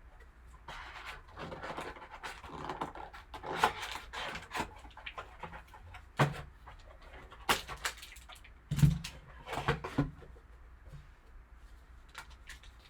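A sealed trading card box being handled and unwrapped: irregular rustling and crinkling of plastic wrap and cardboard, with several sharp clicks and knocks, the loudest in the second half.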